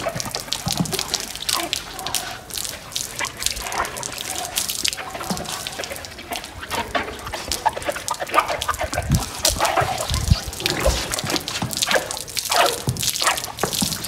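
Water splashing and dripping as horses are washed down, with scattered irregular knocks and clatter.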